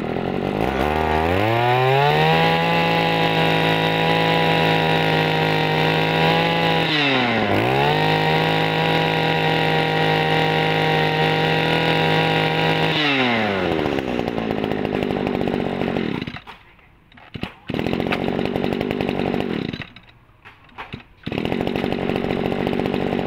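A small Echo 24cc two-stroke brush-cutter engine running. It revs up to high speed and holds there, drops and revs up again once, then falls back to idle. Near the end the idle twice drops away for about a second and comes back.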